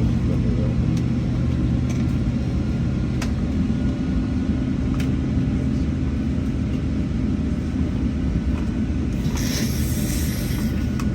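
Cabin noise of a Boeing 757-300 taxiing: a steady low rumble of the engines and airframe, with a few faint clicks and a brief hiss about nine seconds in.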